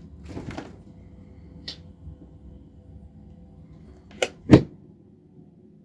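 Refrigerator door pulled open with a short burst of clicks, a small click a little later, then shut with two sharp knocks about four seconds in, the second the loudest. A faint steady hum lies underneath.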